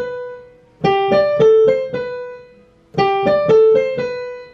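Digital piano played note by note: a short five-note phrase of single notes, played twice, with the last note of each held and left to fade.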